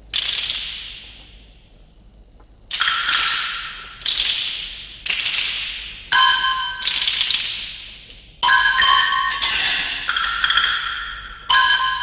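Film-score percussion: about ten sharp metallic strikes, each ringing out and fading over about a second, coming closer together in the second half.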